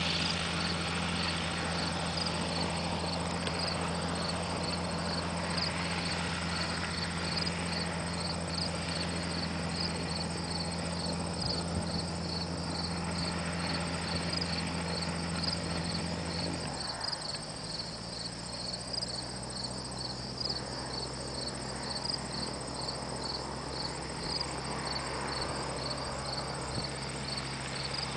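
Crickets or other insects chirping in a steady high pulsing train, over the low steady hum of a distant gyroplane's engine running at taxi power. About seventeen seconds in, the engine note steps down lower as the power comes back.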